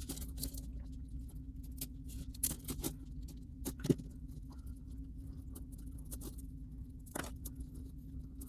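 Light metal clicks and taps from the links of a Leatherman Tread bracelet and a small driver being handled while a link is taken off. A steady low hum runs underneath.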